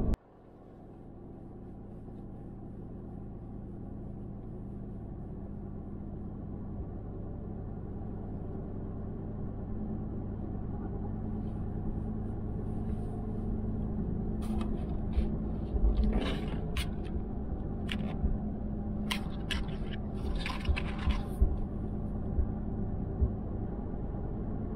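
Ford F-150 Raptor with its EcoBoost engine cruising on a highway, heard from inside: a steady engine and road drone that fades in over the first several seconds. Sharp clicks and rattles come now and then from about halfway through.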